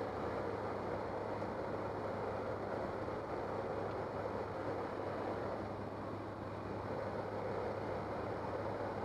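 Steady drone of a transport aircraft's engines mixed with wind rushing past its open side jump door, heard from inside the cabin in flight.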